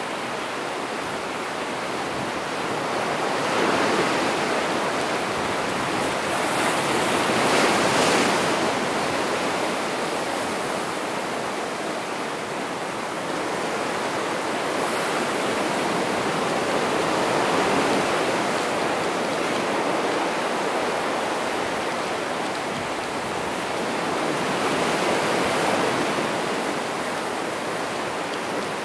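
Ocean surf breaking over and washing across a rocky shore: a steady rushing wash that swells with each incoming wave, loudest around a quarter of the way in, with further swells near the middle and toward the end.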